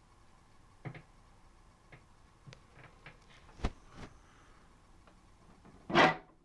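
Scattered light clicks and knocks of a hard-plastic Dickie Toys garbage truck toy being handled, with a louder brief burst of handling noise near the end.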